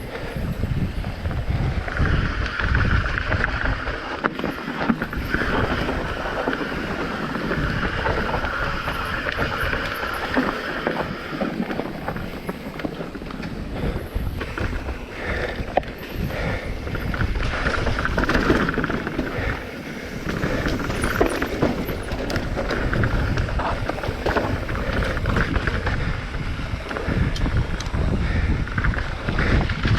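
A mountain bike descending fast over rough trail: wind rushing over the microphone, tyres rumbling on rock and gravel, and the bike rattling over bumps.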